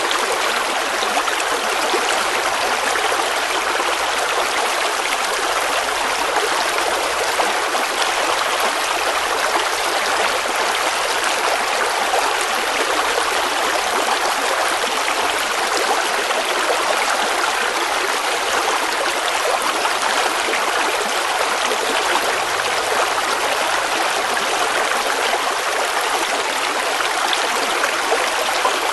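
River water flowing and babbling over rocks, a steady rushing noise with no pauses.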